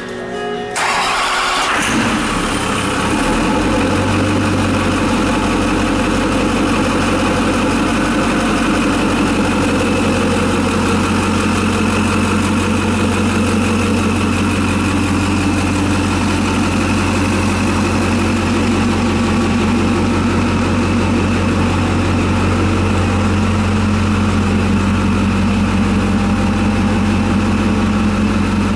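Built Duramax turbo-diesel V8 with compound twin turbochargers starting about a second in and settling to a steady idle.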